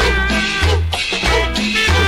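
Cumbia music playing loudly, with a bass note about every half second under sustained melody notes.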